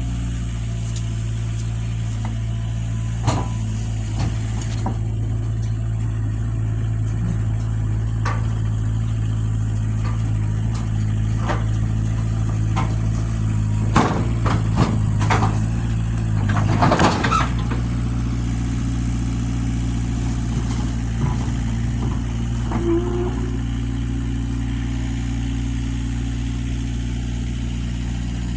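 Engine idling steadily, with scattered knocks and clanks; the loudest run of sharp knocks comes about halfway through.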